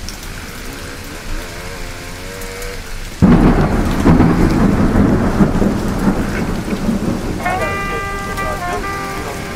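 A thunderclap breaks in suddenly about three seconds in and rumbles on, fading slowly under a steady hiss like rain.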